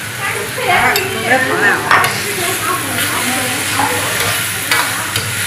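Sliced lotus root sizzling in a hot wok as a metal ladle stirs it, the ladle scraping and clinking against the wok, busiest about one to two seconds in.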